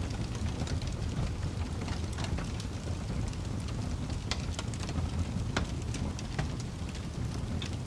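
Fire crackling: many sharp pops and snaps over a steady low rumble of the flames, with a few louder snaps in the middle.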